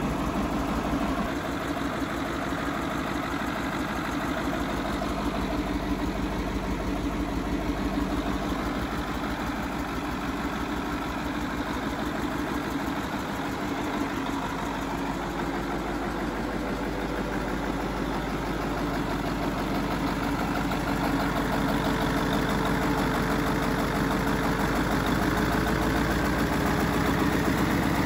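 Doosan V158TIL 14.6-litre twin-turbo V8 marine diesel with a mechanical Bosch inline injection pump, idling steadily just after being started, growing a little louder over the last several seconds.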